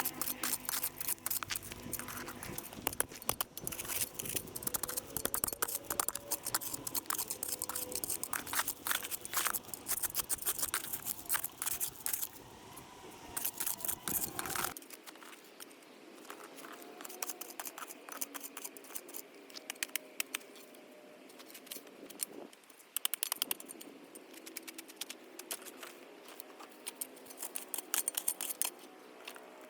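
Digging in soil to free a buried plastic poly tank: rapid scraping and crunching strokes with many small clicks. About halfway through the strokes become sparser and quieter.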